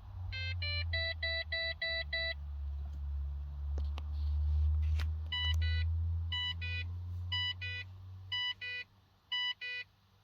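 Dashboard warning chimes of a 2006 Holden Berlina: short electronic beeps in quick pairs repeating about once a second, with a fast run of six beeps near the start, over a low steady hum that stops near the end. The chimes go with the instrument cluster's fault warnings (fuel gauge error, service vehicle soon, very low fuel), which the owner puts down to a failing ECU.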